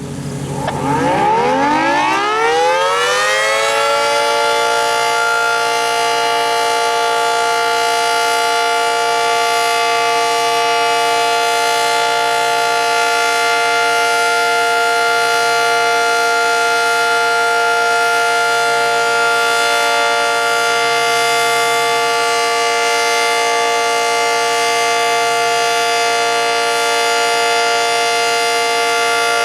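Early-1960s Federal Signal 2T22 dual-tone outdoor warning siren winding up from a start, its pitch rising over the first few seconds. It then holds a loud, steady chord for the rest of the test.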